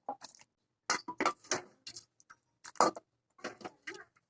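A serving spoon clinking and scraping against the pressure cooker and a bowl as thick curry is ladled out: a string of irregular sharp clicks and knocks.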